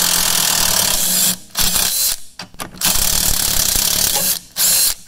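Impact wrench hammering in four bursts, a long run, a short one, another long run and a short final one, as it spins out the camber arm's outer bolt on a Ford Focus rear suspension.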